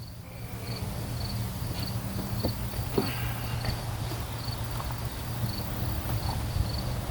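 Insects, likely crickets, chirping steadily outdoors, about two short high chirps a second, over a low steady hum, with a couple of faint clicks.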